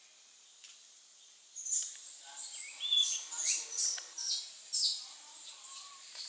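Short, high-pitched animal chirps and squeals, repeated about two or three times a second, begin about one and a half seconds in over a faint hiss.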